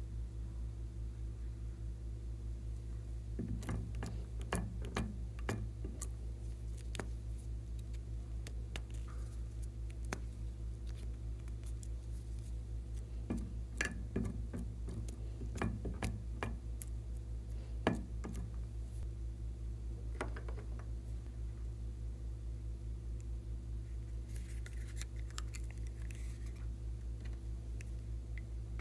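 Small plastic containers handled by hand: scattered sharp clicks and taps, some in quick clusters, over a steady low hum. A soft scratchy rustle comes near the end.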